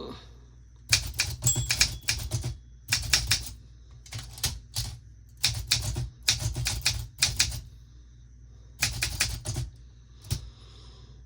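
Typewriter keys striking in quick runs of several keystrokes, with short pauses between the runs.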